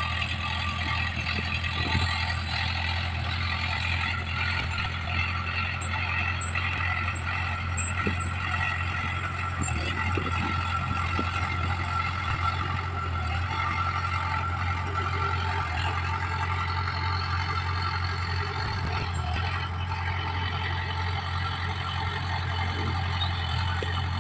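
Komatsu D20PL crawler bulldozer working, its diesel engine running steadily under a constant high whine, with a few scattered knocks.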